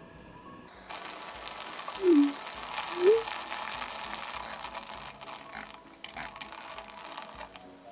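Soy-based tteokbokki sauce bubbling and sizzling in a pot of rice cakes and fish cakes, a steady crackling hiss. About two and three seconds in come two short pitched blips, the first falling and the second rising.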